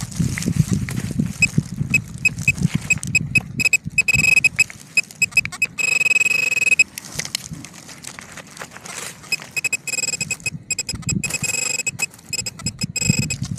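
Soil being scraped and dug, with a metal-detecting pinpointer giving high-pitched beeps that quicken into a continuous tone about six seconds in, the sign of a metal target in the hole; the beeping comes back near the end.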